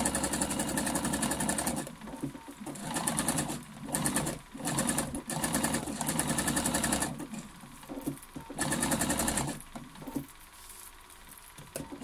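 Computerized sewing machine running a zigzag stitch in several runs, stopping and starting again as the coiled fabric strips are turned under the needle. It is quiet for the last couple of seconds.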